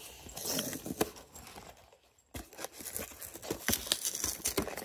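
Hands handling a blind-box toy's small cardboard box and foil wrapper: crinkling and scattered light taps and clicks, with a brief lull about two seconds in.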